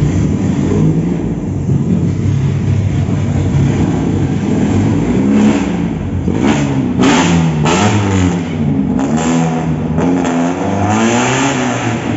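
Chevrolet Kadett GSi 2.0 naturally aspirated four-cylinder with an open 4-into-1 header and no air filter, running loud and unsteady at low speed, then blipped up and down about once a second from about halfway through.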